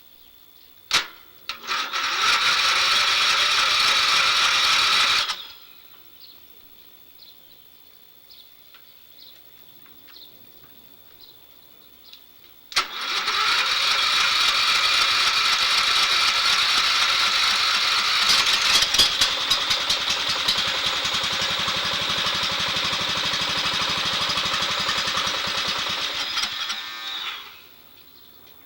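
Electric starter cranking a riding mower's 14 hp Briggs & Stratton engine: a click, a crank of about four seconds, then after a pause a long crank of about fifteen seconds, without the engine catching. The owner puts the failure down to the engine not getting fuel.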